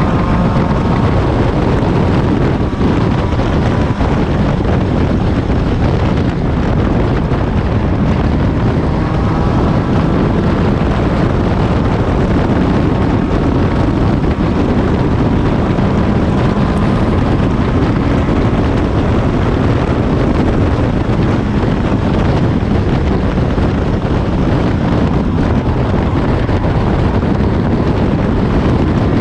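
Open-cockpit race car at racing speed: engine running hard under heavy wind buffeting on the microphone, with the engine pitch rising at the start and again around ten seconds in.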